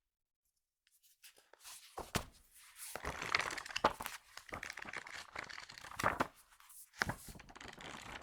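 Magazine pages being flipped fast: quick papery rustling in several bursts, with sharp snaps of single pages, coming in after about a second of silence.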